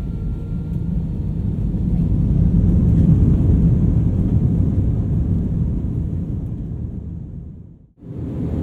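Airbus A320 cabin noise as the airliner rolls along the runway: a steady low rumble of the jet engines and the airframe. It swells about three seconds in, eases off, then fades out briefly near the end.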